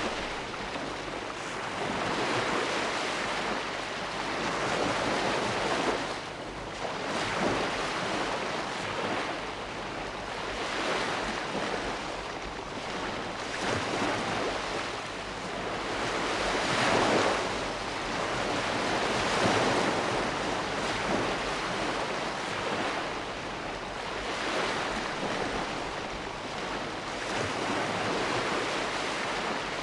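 Sea waves breaking and washing on the shore, a steady rush that swells and ebbs every few seconds, with a few louder surges. Some wind noise on the microphone.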